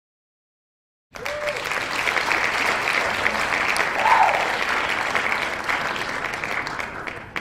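Crowd applauding, starting suddenly after about a second of silence and tailing off near the end.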